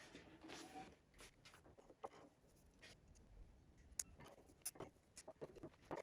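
Quiet cleaning noises: a faint cloth rubbing at first, then scattered light clicks and taps of hands handling the sewing machine.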